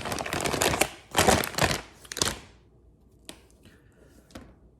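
Packaging bag crinkling and rustling as an Ethernet cable is pulled out of it, dying down about halfway through to a few faint clicks and rustles.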